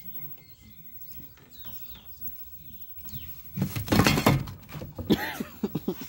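A small wood-framed mirror toppling flat onto wooden porch boards: a loud clatter about three and a half seconds in, then a few sharp rattles about a second later as it settles.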